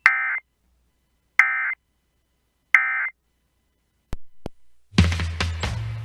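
EAS end-of-message code ('NNNN') sent as three short bursts of digital data tones, each about a third of a second, about a second and a half apart, marking the end of the alert. Two sharp clicks follow, then music starts about five seconds in.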